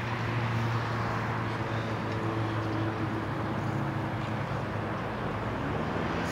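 Low hum of a motor vehicle engine on the road, fading over the last few seconds, over a steady outdoor rush.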